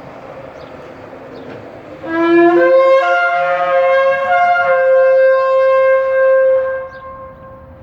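Kudu-horn shofar blown in one long blast: it starts on a low note about two seconds in, jumps up to a higher note after half a second and holds it, wavering a little, for about four seconds before stopping.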